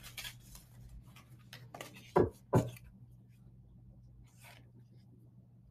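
Angel answer oracle cards being shuffled: quick soft clicks and rustles of card stock, with two louder taps about two seconds in, then it goes quiet but for a faint steady low hum.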